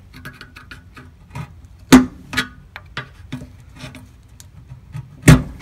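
Flat-blade screwdriver prying against the edge of a Ford 302's oil pan: a run of small metallic clicks and taps, with two loud clanks about two seconds in and near the end. The pan rings briefly after the harder hits.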